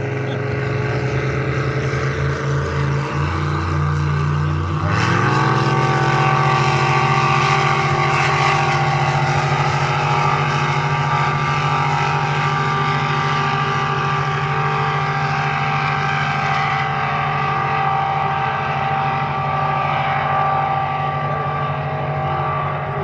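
Racing boats' inboard engines running hard as two boats race side by side. About five seconds in the engine note rises sharply and then holds steady at high revs, easing down slightly near the end.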